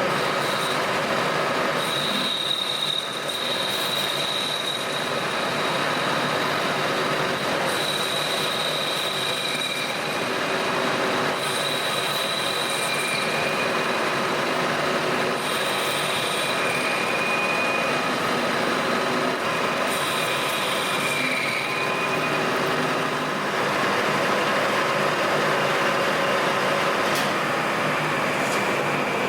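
Colchester Master 2500 metal lathe running while its tool cuts notches into an aluminium shaft. A high-pitched squeal rises over the steady machine noise several times, a second or two each, as the tool bites.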